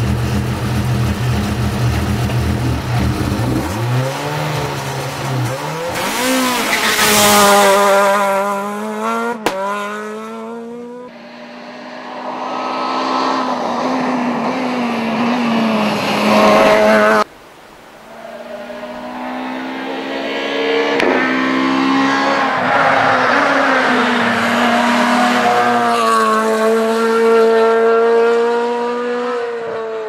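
Rally car engine idling steadily, then revving up about four seconds in and pulling away hard at full throttle. After abrupt cuts, rally cars are heard accelerating hard through the gears at speed on the stage.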